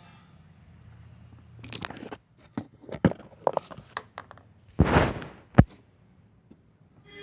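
Handling noise: an irregular series of clicks, taps and scrapes, with a short rustle about five seconds in and a sharp knock just after it.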